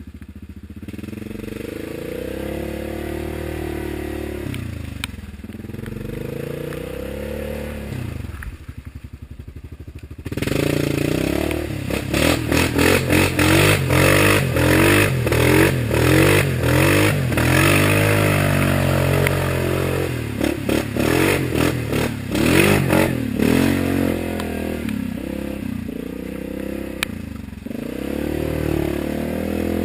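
Yamaha Grizzly ATV's single-cylinder four-stroke engine pulling through mud, its revs rising and falling. About ten seconds in it jumps to hard, repeated revving as the quad ploughs through a deep mud hole, with mud and water spraying against it. Near the end it settles back to a steadier pull.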